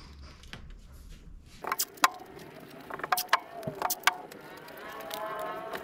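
Masking tape being pulled off the roll and laid along the edge of a car roof: a series of sharp crackling snaps, then a longer pitched screech of tape peeling off the roll near the end.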